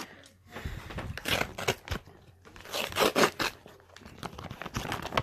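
Paper sandwich wrapping crinkling and tearing in several short bursts as it is pulled open by hand, loudest about three seconds in.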